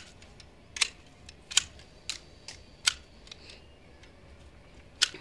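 Hand shears snipping through plant stems during pruning: a run of sharp, crisp snips about once a second, then a pause of about two seconds before one more snip near the end.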